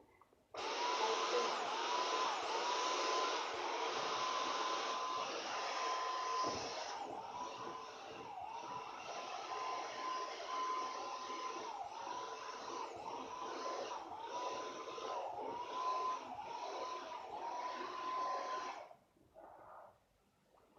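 Vacuum cleaner switched on, running with a motor whine that dips in pitch again and again as it works over the sofa, then switched off near the end.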